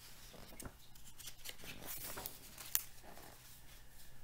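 Paper pages of a picture book rustling as they are turned and handled, with one sharp click about three seconds in.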